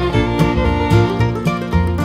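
Background music: a string-band tune with fiddle and plucked strings over a steady bass beat.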